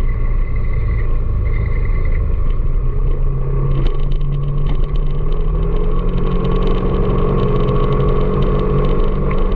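Vehicle engine running steadily under way, with a continuous low road-and-wind rumble. The engine note climbs a little about six seconds in.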